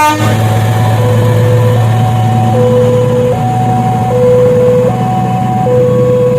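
Railroad level-crossing warning alarm sounding two alternating electronic tones, low then high, each held about three-quarters of a second, over a steady low engine drone.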